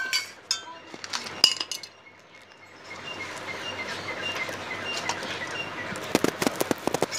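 Light clinks and taps of hands and fish against a stainless steel plate, densest near the end, with a small bird chirping about twice a second in the background.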